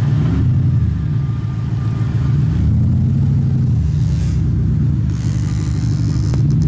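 A car's engine and exhaust running loud, its pitch rising and falling several times as it is revved.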